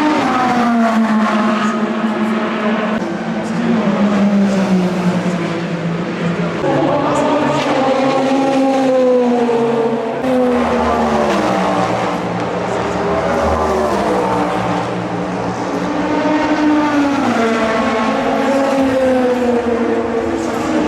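Race car engines running on the circuit, several at once, their notes rising and falling as they rev through the gears and pass by.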